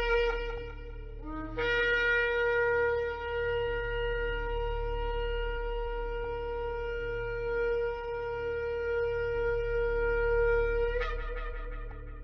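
Shofar blowing: a blast ending just after the start, then a short low note scooping up into one long, steady held blast that breaks upward into a brief higher note near the end.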